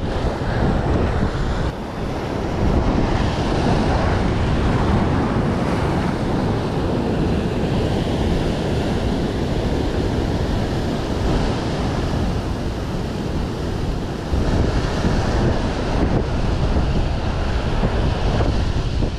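Heavy ocean surf breaking and washing over shoreline rocks, with strong wind buffeting the microphone.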